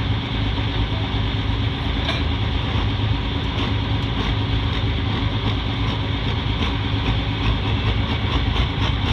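Pulling tractor engine idling steadily, a deep even drone.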